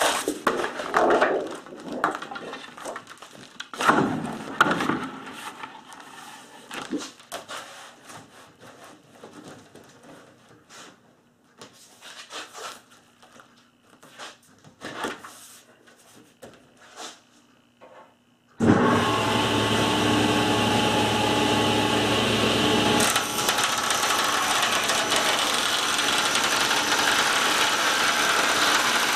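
For about the first eighteen seconds, thin plastic sheets are handled and stacked on a cast-iron table saw top, with scattered knocks, slaps and rustles. Then a Delta Unisaw table saw starts abruptly and runs steadily with a loud whine, cutting through a stack of plastic sheets.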